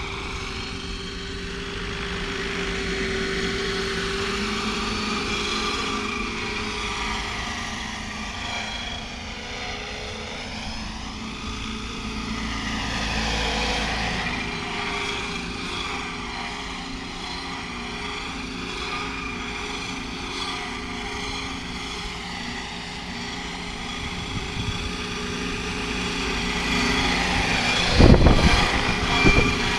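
Radio-controlled scale MD 520 helicopter flying and hovering: steady rotor and motor noise mixed with the Aerosound sound module's simulated turbine whine, swelling and fading as it moves about. Near the end, as it comes low and close, a loud rush of rotor wash hits the microphone.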